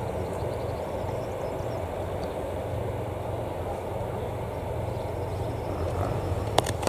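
EN57AKD electric multiple unit approaching, with a steady, even running noise of its wheels on the rails that holds level throughout. There is a sharp click near the end.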